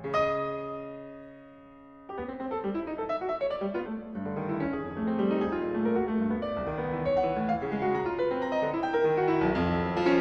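Solo piano: a chord struck at the start and left to ring and fade for about two seconds, then a rapid, dense run of notes that grows louder.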